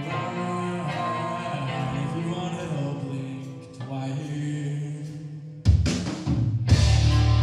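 Live heavy metal band: a quieter guitar passage with held, changing notes, then about five and a half seconds in the whole band comes in loud with drums and heavy electric guitars.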